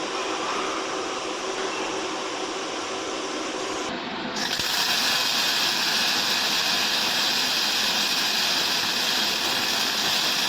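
Automatic cuplock welding machine running with a steady mechanical noise. About four seconds in, a loud, steady high hiss starts and keeps going.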